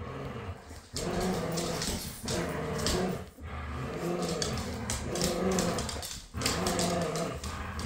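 Two dogs growling in play while tugging on a toy: long, continuous growls broken by a few brief pauses.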